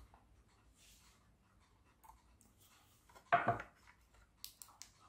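Handling noise while a small circuit board is freed from a robot vacuum's plastic base: faint scrapes, one louder knock about two-thirds of the way in, then a few light clicks.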